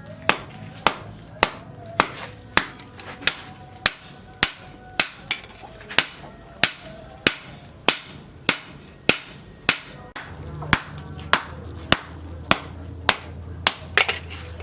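Hammer blows on hot steel at the anvil in a steady rhythm, about one every 0.6 s, forging a cleaver blade, some strikes leaving a short metallic ring. About ten seconds in, a low steady hum joins, with a couple of quicker double strikes near the end.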